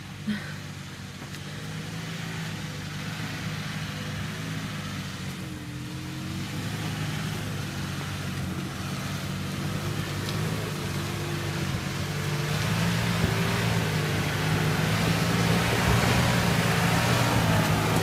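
A 4x4 off-road vehicle's engine running steadily at low revs as it climbs a muddy track. It grows louder as the vehicle comes closer, with a noisy wash building up over the second half.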